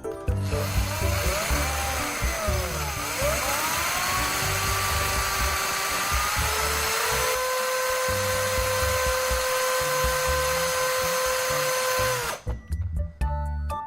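Small handheld power tool running for about twelve seconds, with a harsh hiss over a motor whine. The whine sags and wavers in pitch about three seconds in, as if under load, then rises and holds a steady pitch before the tool cuts off suddenly near the end.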